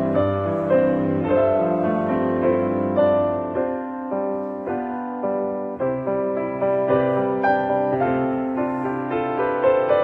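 Background piano music: a melody of individually struck notes, each sounding and then fading.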